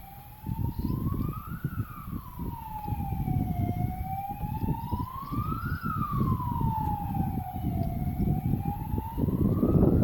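Emergency vehicle siren in a slow wail, rising and falling about every four seconds, over low rumbling noise.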